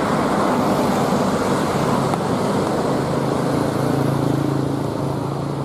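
A bus engine running steadily close by, with road and traffic noise around it. The hum eases off slightly near the end.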